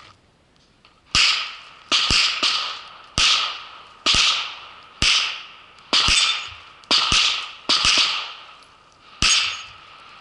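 Handgun firing about a dozen shots during a timed IPSC course of fire, some single and some in quick pairs, with gaps between them. Each shot echoes.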